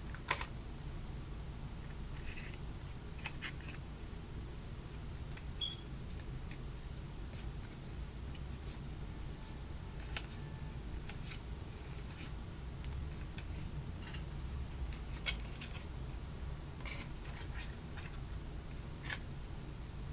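Light clicks, taps and rustles of thin cardboard and paper being handled as the iPhone box's documentation sleeve is pulled from the tray and opened, scattered irregularly over a steady low hum.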